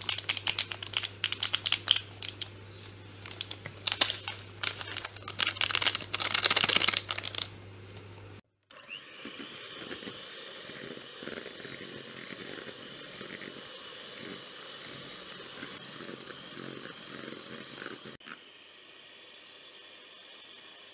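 Plastic food-colouring packets crinkling and crackling sharply as they are handled and opened, for about eight seconds. After a brief break comes a quieter, uneven sound with faint repeated pulses, fading to a low hiss near the end.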